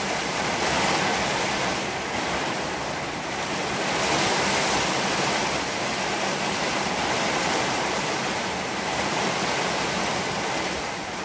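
Heavy rain falling steadily, a dense, even hiss with no thunder claps.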